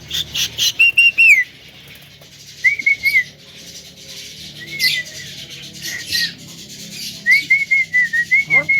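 Javan myna calling: harsh chirps and clicks, then short wavering whistled phrases, with a longer run of whistles near the end.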